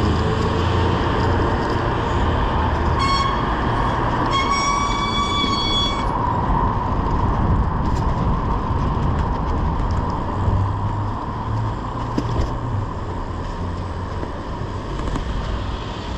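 Steady wind and road rumble from riding a bicycle through city traffic. A vehicle horn sounds twice about three and four seconds in: a short toot, then a longer one of about a second and a half.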